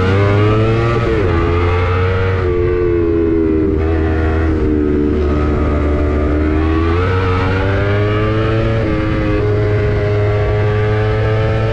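Sport motorcycle with a prototype aftermarket racing exhaust under way and accelerating: the exhaust note rises and falls in pitch several times with throttle and gear changes, then holds a steady pitch for the last few seconds.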